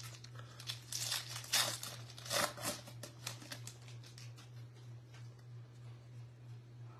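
A stack of 2024 Bowman paper baseball cards rustling and sliding against each other as it is handled and shuffled between the hands: a few scratchy rustles in the first three seconds, then softer ticks. A steady low hum lies underneath.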